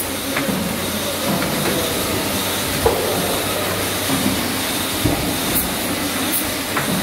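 Syringe assembly machine line running: a steady mechanical hum with occasional knocks, and two short hisses near the end.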